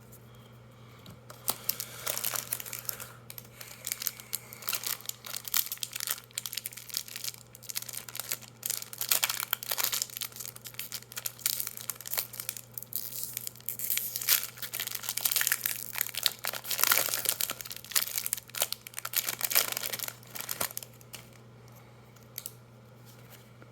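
Foil Magic: The Gathering booster pack wrapper being torn open and crinkled in the hands: irregular crackling and rustling for most of the stretch, dying away near the end.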